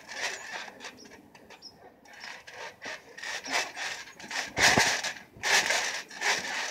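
Scuffing and rubbing noises of a person moving about and wrestling with a pillow on a trampoline mat, with one louder thud nearly five seconds in.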